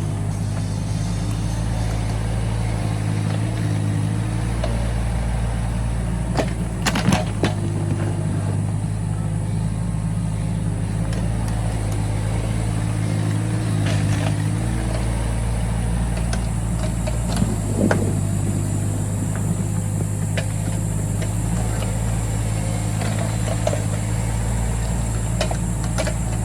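Excavator engine running steadily while digging soil, with a few sharp metallic clanks and knocks, the loudest about a quarter of the way in and again past halfway.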